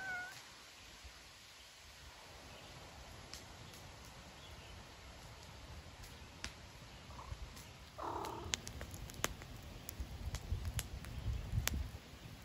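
A cat meows once right at the start. In the second half a wood fire in a metal fire pit crackles with sharp pops every so often over a low rumble.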